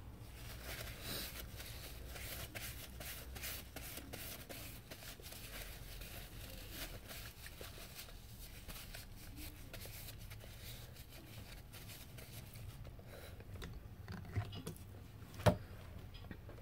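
A small piece of paper towel being torn and crumpled by hand: a run of soft crackles, with one sharp click near the end.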